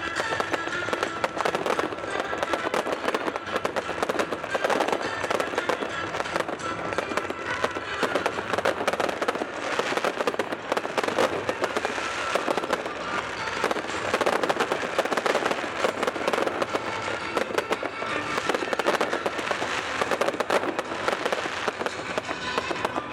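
Fireworks finale: many aerial shells bursting at once, a dense, unbroken rattle of cracks and bangs with no pause between them.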